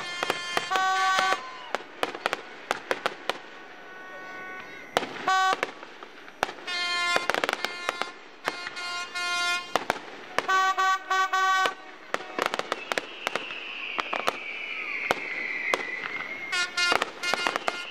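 Fireworks display going off, with many sharp bangs and crackles. Several short horn blasts sound in between, and near the end a long whistle slowly falls in pitch.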